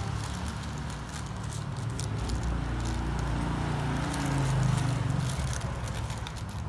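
A sheet of paper crinkling and crackling as hands lift a durian pod out of the split husk, over a steady low hum.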